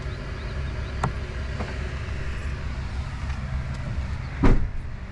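Steady low rumble of a vehicle engine running close by, with a couple of faint clicks and one louder short thump about four and a half seconds in.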